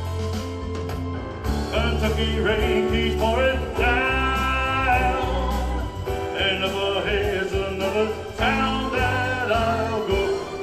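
Backing music of a slow country-pop ballad, with no lead vocal: held, wavering melody notes over a steady, heavy bass line.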